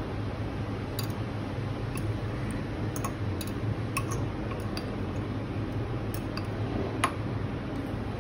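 Light clinks of a metal fork against a glass bowl of melted chocolate, about one a second, the sharpest near the end, over a steady low hum.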